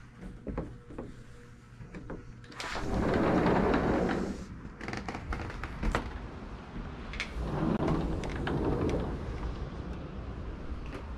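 Two gusts of wind rushing over the camera's microphone, one about three seconds in and a second about eight seconds in, with scattered light knocks and clicks between them.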